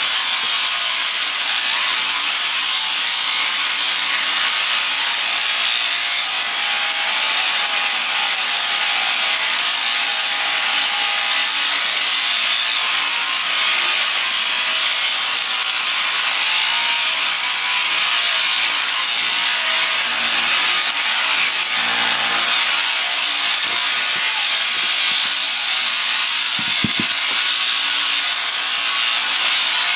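Overhead-drive sheep shearing handpiece running steadily, its cutter and comb clipping through a ram's fleece with a continuous high buzzing hiss.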